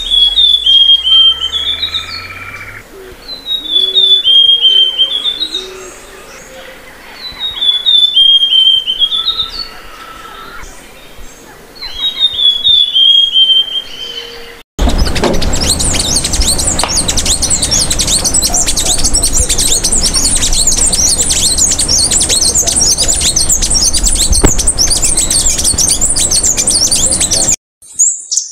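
Amazonian blue finch singing four clear phrases about four seconds apart, each a quick run of notes that dips and then rises. About halfway through, a sudden cut brings in a dense, unbroken high-pitched twittering over a low rumble.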